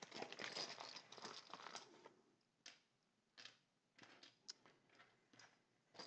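Faint rustle of a clear plastic bag for about two seconds as keycaps are taken out, then a few light clicks of plastic keycaps being set down on a mat.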